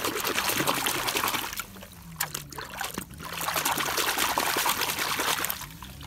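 Water splashing and sloshing as a plastic toy car is swished back and forth in it by hand. It comes in two spells, with a lull about two seconds in.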